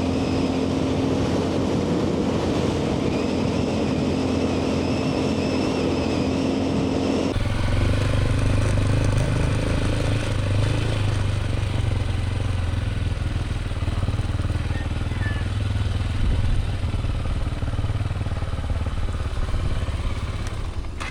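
AKT TT DS 200's single-cylinder engine running steadily while the motorcycle is ridden. About seven seconds in, the sound changes abruptly to a deeper, lower engine note.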